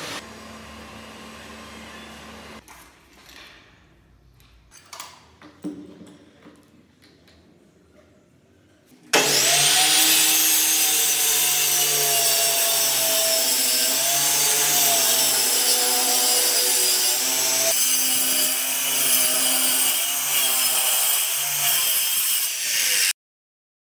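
A few faint knocks, then about nine seconds in a handheld circular saw starts and runs steadily while cutting along a white laminated board, its pitch wavering slightly under load. It cuts off abruptly near the end.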